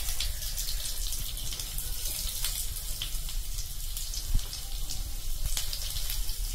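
Cumin seeds sizzling in hot oil in a kadai, a steady hiss full of fine crackles as the seeds fry at the start of a tadka, with one soft knock a little past the middle.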